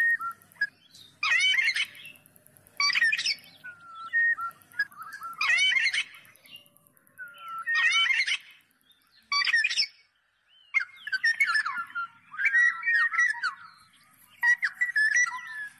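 Black-naped oriole calling: short whistled notes alternating with louder, harsher calls, repeated every two to three seconds, then a denser run of jumbled notes after a brief pause about ten seconds in.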